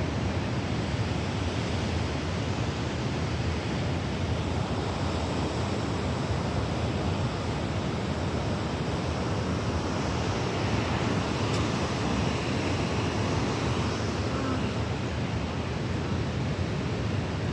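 Steady rushing of water below in the canyon, a constant full roar that does not change.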